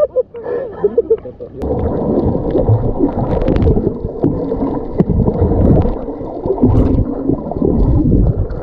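Water heard through an action camera held underwater: a muffled, dense rushing and gurgling of water and bubbles with scattered small clicks. It starts about a second and a half in, when the camera goes below the surface.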